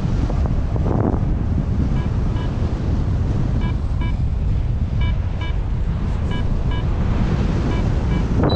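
Wind rushing over the microphone in flight, steady and strong, with a paragliding variometer beeping in short high pips that come in runs and stop near the end.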